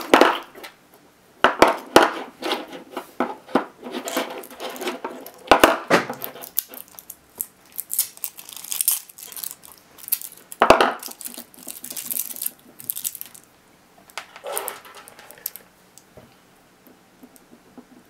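Loose Sony US18650GR lithium-ion cells being handled on a desk: metal cans clinking and knocking as they are set down, with crinkling of leftover wrapping picked off them. Sharp knocks come about 1.5, 2, 5.5 and 11 seconds in, and the crinkling is thickest in the middle.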